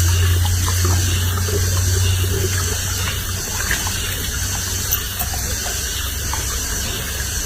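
Water running steadily, with a low hum that fades after the first few seconds.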